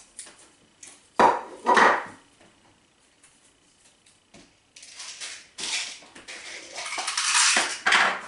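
Two knocks of a plastic bowl set down on a table, then a few seconds of rattling and clinking as small plastic beads and trinkets are handled in a dish.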